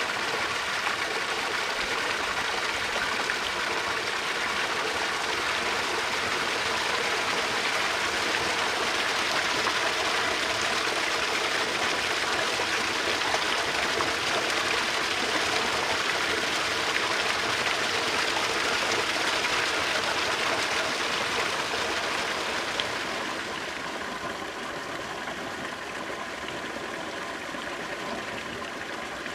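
Flowing water rushing and babbling steadily, like a stream or small cascade. About three-quarters of the way through it becomes quieter and duller.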